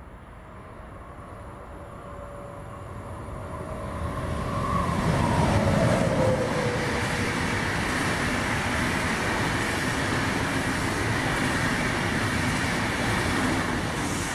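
DB class 101 electric locomotive hauling a passenger train of SBB coaches as it approaches and passes, growing louder. A whine drops in pitch as the locomotive goes by about five seconds in. The coaches then keep up a steady rolling rumble.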